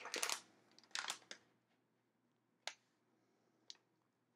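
Handling noises as a metallized antistatic bag of LEDs is brought in and laid on a cutting mat: short rustles at the start and again about a second in, then two single sharp clicks.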